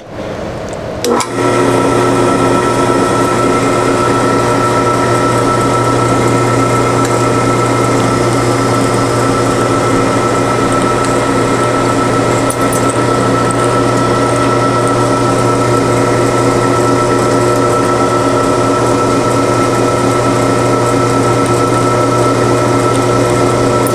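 Drill press motor switching on about a second in and running steadily with a constant hum while the bit cuts dry, without cutting oil, into a snapped bolt in a part of a 1930 Briggs & Stratton model FH engine.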